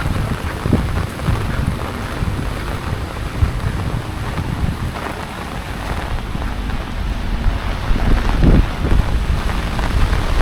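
Wind buffeting the microphone in uneven gusts, a heavy low rumble over a steady hiss of typhoon rain.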